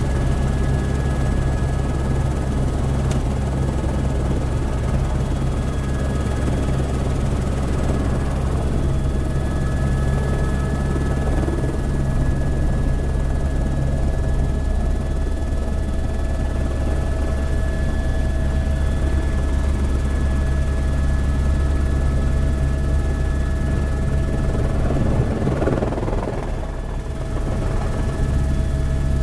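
Helicopter rotor and engine heard from inside the cockpit: a loud, steady low drone with a steady whine on top. It dips briefly near the end.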